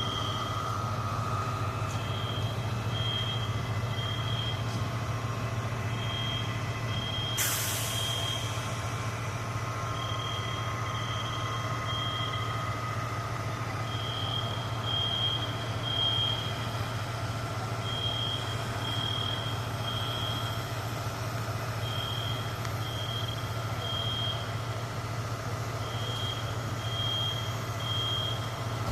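Fire alarm beeping in groups of three short high beeps that repeat about every four seconds, the temporal-three evacuation pattern, over the steady low drone of an idling fire truck engine. A short sharp hiss sounds about seven seconds in.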